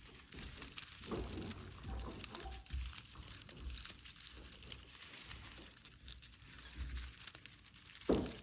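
Crinkling and rustling of a vintage aluminum Christmas tree branch's foil needles as they are handled and straightened, with a louder short bump about eight seconds in.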